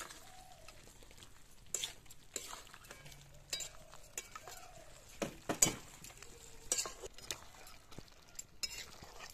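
Long metal spatula stirring a thick pork curry in an aluminium pot, scraping and knocking against the pot in irregular clinks, the loudest a little past halfway.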